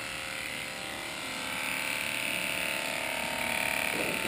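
Electric hair clipper running steadily while clipping a dog's fur, its buzz growing a little louder about a second and a half in.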